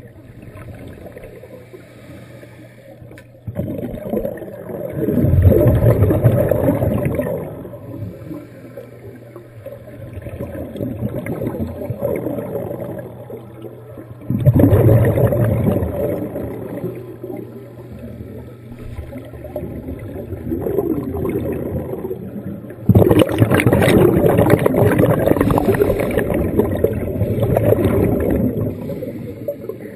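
Underwater sound of a scuba diver breathing through a regulator: exhaled air rushes out as bubbles in three long bursts, about ten seconds apart, with quieter breathing between them over a steady low hum.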